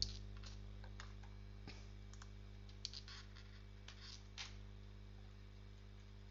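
Faint, irregular clicks of computer keyboard keys being pressed, over a steady low electrical hum.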